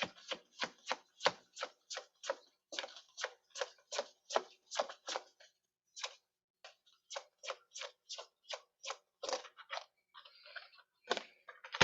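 Tarot deck being shuffled by hand: a quick run of soft card slaps, about four a second, pausing briefly about six seconds in and thinning out near the end.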